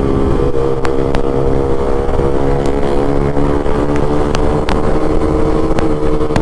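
Yamaha R15M's single-cylinder engine running at a steady, fairly high pitch through an aftermarket SC Project full-system exhaust while riding. The note rises slightly about half a second in, with sharp clicks here and there.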